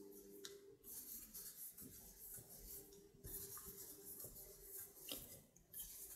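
Faint rubbing and scratching of yarn against a metal crochet hook as double crochet stitches are worked, over a faint steady low hum.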